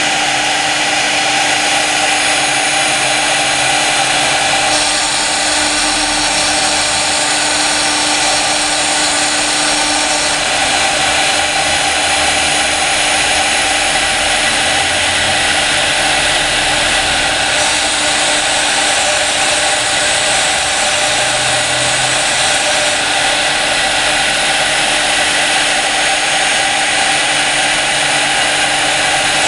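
CNC router spindle running at high speed while its fine engraving bit cuts into glass: a steady whine over a grinding hiss, the hiss changing slightly every few seconds.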